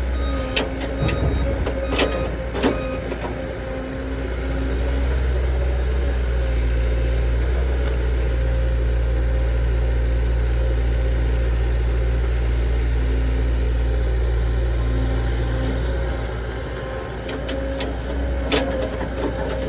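Heavy diesel engine of earthmoving machinery running steadily at a constant pitch, with a few sharp metallic knocks near the start and again near the end.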